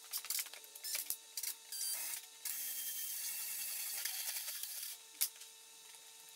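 Cordless drill-driver running for about two and a half seconds from near the middle, fixing a steel bracket to the wall, its pitch dropping slightly as it loads up. Before it come light clicks and clatter of the bracket and screws being handled, and a sharp click follows it.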